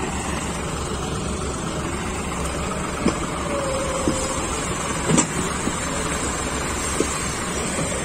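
John Deere 5405 tractor's three-cylinder diesel engine running steadily as it pulls a fully loaded trolley past, with four short knocks at irregular intervals.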